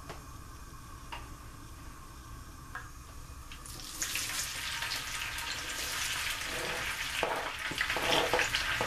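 Diced red and green bell peppers and onions hitting hot vegetable oil in a skillet. They start to sizzle and crackle about four seconds in, getting louder as more go in. Before that there are only a few faint clicks.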